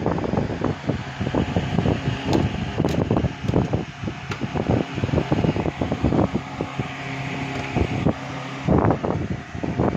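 Wind buffeting the microphone, heard as an uneven rumbling rush with irregular bumps from the phone being handled.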